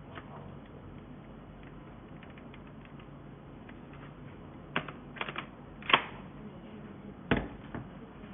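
Plastic vacuum cleaner parts being handled and fitted together: scattered light ticks, then a handful of sharper clicks and knocks from about five seconds in.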